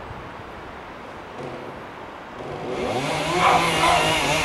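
Chainsaw engine idling, then revved up after a little under three seconds, its pitch rising and falling.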